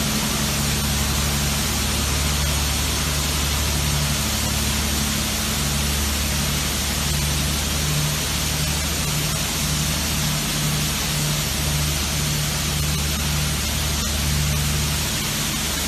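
Water spray in a bus rain-test booth hissing steadily, like heavy rain, over a low machine hum with a low tone that pulses unevenly on and off.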